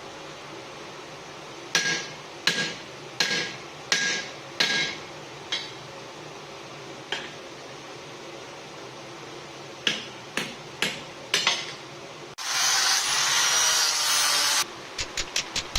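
Hand hammer striking hot steel on an anvil: five evenly spaced ringing blows, a couple of sparser ones, then four quicker blows. About twelve seconds in, a loud steady hiss lasts about two seconds, followed by a quick run of light taps.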